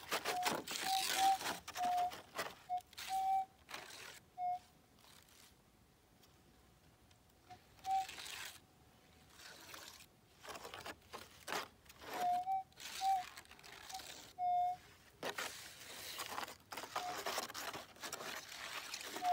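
Gold metal detector giving short, repeated target beeps at one pitch as its coil passes over a buried nugget, between bursts of scraping and rustling.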